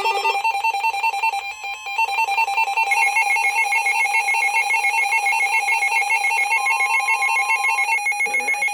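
Electronic emergency-alert tone beeping rapidly and continuously in two high pitches, dipping briefly about a second and a half in, with a short steady tone joining it near the end.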